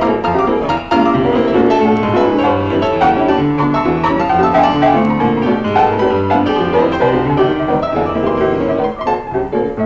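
Piano playing a lively stride-style tune, with bass notes and chords under a busy right-hand melody.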